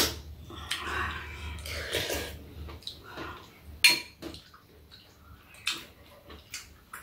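Spoons and chopsticks clinking against ceramic bowls during a meal of soup, with soft slurping between the clinks. The loudest clinks come at the very start and about four seconds in.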